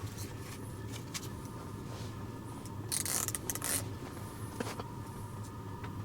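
Fishing line being wound back onto a small fishing reel by hand: light clicks and handling noise, with a brief rustle about three seconds in, over a steady low hum. The reel has just tangled the line and is giving trouble.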